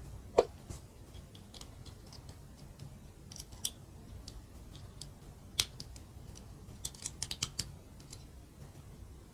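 Mini plastic building bricks clicking and snapping together: scattered light clicks, a sharp click about half a second in, another near six seconds, and a quick run of clicks around seven seconds.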